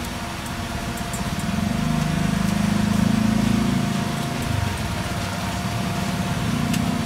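A motor running with a steady low hum that grows louder for a couple of seconds in the middle.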